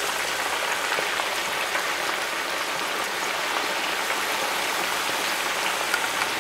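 Turkey pieces deep-frying in hot oil in a large cast-iron Dutch oven: a steady, vigorous sizzle and bubbling from freshly added wing and breast pieces.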